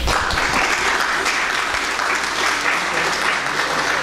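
An audience applauding, a steady round of clapping.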